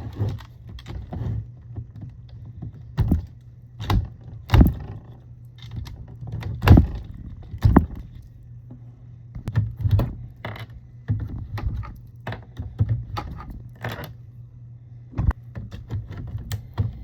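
Irregular clicks, knocks and rattles of hands and tools handling the plastic parts of a vehicle fuse box as it is taken apart, with a few sharper knocks, over a steady low hum.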